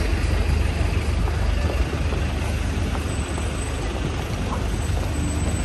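Busy street traffic: a steady low rumble of buses and other vehicles in the road, with an even hiss from the wet road and the crowd on the pavement.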